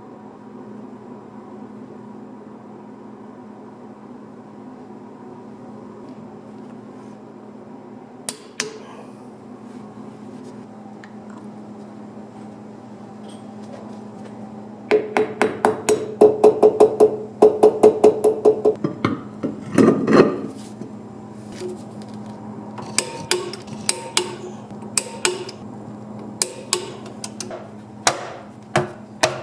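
Hammer blows ringing on metal: a couple of taps, then a fast run of blows, one heavier thump, and then slower, separate strikes, over a steady low hum.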